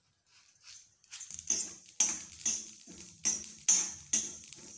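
Mustard seeds being stirred around a dry iron kadhai while they roast, a rough scraping stroke roughly twice a second starting about a second in.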